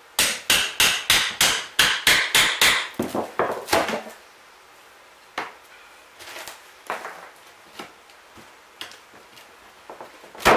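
A claw hammer striking a pry bar in a quick run of about fourteen blows, roughly four a second, driving it under the rotten subfloor. After about four seconds the hammering stops and only light knocks and rattles of debris and tools follow, with one sharp knock near the end.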